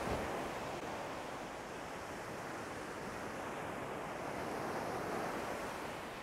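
Ocean surf breaking and washing up the sand: a steady rush of water that swells at the start and again about five seconds in.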